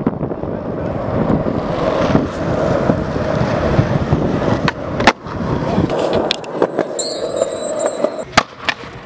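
Skateboard wheels rolling over asphalt, a steady rough rumble, then sharp clacks of the board about five seconds in and again near the end as the rolling dies down. A short high-pitched tone sounds about seven seconds in.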